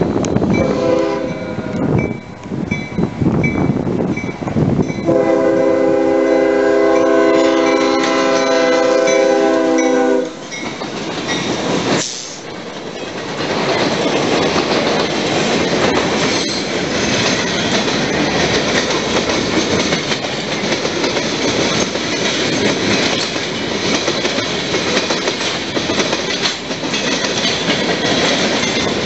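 Freight train's diesel locomotive horn sounding for a grade crossing: a short blast, then a long chord held about five seconds, over an evenly repeating crossing bell. Then the locomotives and freight cars roll past with a steady, loud rumble of wheels on rail.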